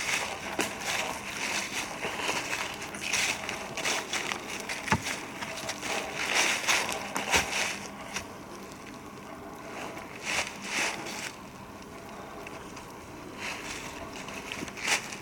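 Footsteps rustling and crunching through dry leaf litter, in irregular short bursts with a couple of sharp snaps of twigs, over a faint steady low hum.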